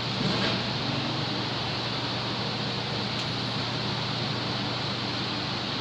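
Steady machine hum with an even hiss over it, unchanging throughout, with a faint click about three seconds in.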